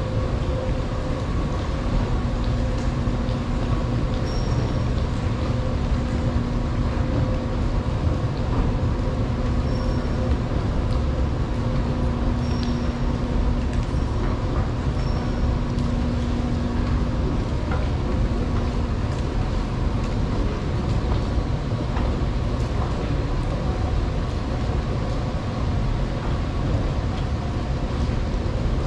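Long subway station escalator running: a steady low rumble with a faint hum, a low tone that comes and goes, and a few short high squeaks.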